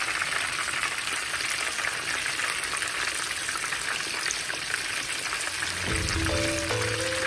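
Floured pieces of pork stomach deep-frying in hot oil: a steady, dense sizzle. Background music comes in about six seconds in.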